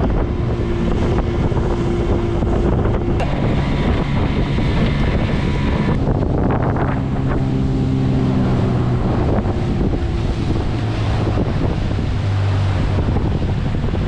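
Boat outboard motor running at speed over choppy water, with heavy wind buffeting the microphone and water rushing past the hull. The engine's tone changes about six seconds in.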